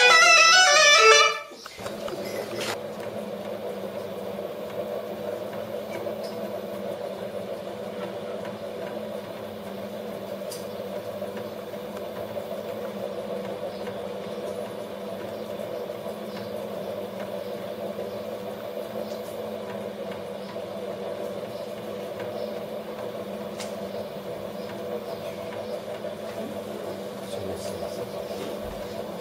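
Folk music cuts off about a second and a half in, followed by the steady hum of a potter's wheel motor spinning at constant speed, with a few faint ticks.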